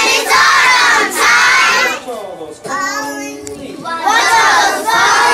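A class of kindergarten children singing and shouting a song loudly in unison, in two loud stretches with a quieter moment in between.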